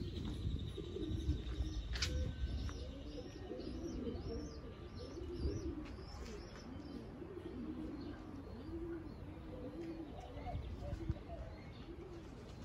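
Pigeons cooing: many overlapping low coos, repeated over and over, with a few higher bird chirps and a sharp click about two seconds in.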